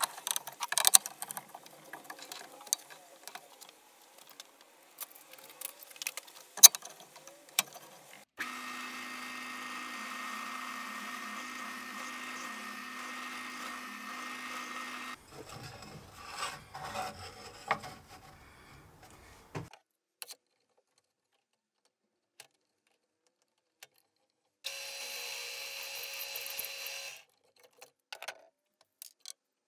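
Benchtop drill press boring a 10 mm Forstner bit into a small plywood block: about seven seconds of steady drilling with a motor hum, then a second, shorter run near the end. Before and between the runs come clicks and knocks of the workpiece and clamps being handled.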